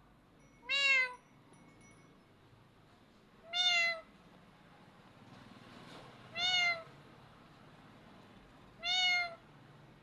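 A parrot mimicking a cat's meow: four short, evenly spaced meows, each rising slightly and falling back in pitch.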